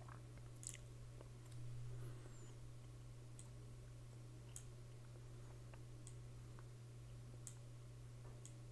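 Near silence over a steady low hum, broken by a handful of faint, sharp clicks at irregular intervals, typical of a computer mouse being clicked.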